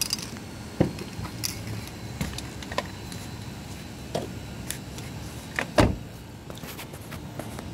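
Scattered sharp taps and clicks, about a dozen at uneven spacing and the loudest a double tap near the end, over a steady low rumble.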